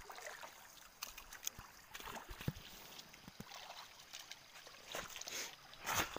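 Faint trickle of a shallow stream with scattered soft splashes and knocks of someone wading carefully through the water, with a louder splash near the end.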